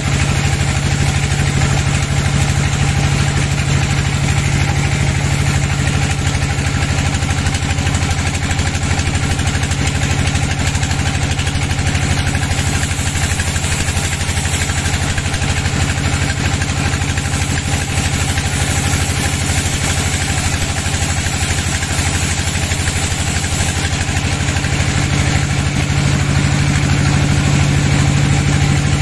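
Sawmill band saw running and ripping lengthwise through a wooden slab: a steady low drone from the machine's drive under the even noise of the blade cutting the wood.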